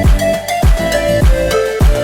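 Background music with a steady electronic beat: deep kick drums about every 0.6 s under a sustained melody.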